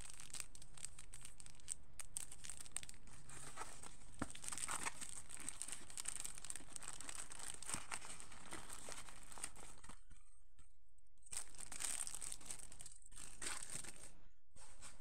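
Thin clear plastic wrapping crinkling and rustling as it is handled and folded, with a pause about ten seconds in and a few shorter bursts near the end.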